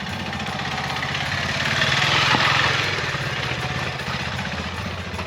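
KTM 390 Adventure's single-cylinder engine running at low revs with a fast, even pulse. A rushing noise swells and fades about two seconds in.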